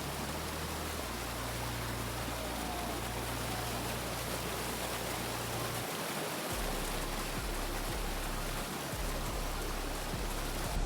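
Dudhsagar Falls, a very tall waterfall, pouring into its pool: a steady, even rush of falling water.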